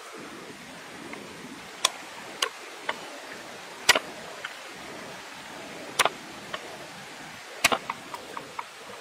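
Knife knocking on a wooden cutting board: single sharp knocks a second or so apart, then a quicker run of small clicks near the end, over a steady hiss.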